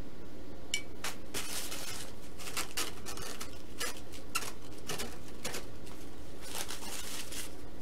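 Hands handling wooden sticks and a small plastic glue bottle on a workbench: irregular light clicks, taps and brief scraping noises, starting about a second in.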